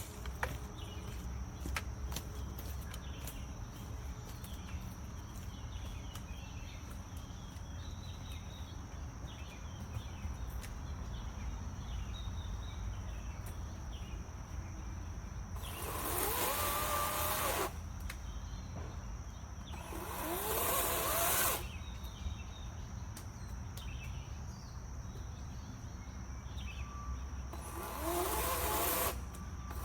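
EGO Power+ 16-inch 56V battery chainsaw's electric motor and chain revved in three short bursts, about 16, 20 and 28 seconds in, each rising quickly in pitch and stopping sharply when the trigger is released. Between bursts only a steady outdoor background hum with a thin high tone.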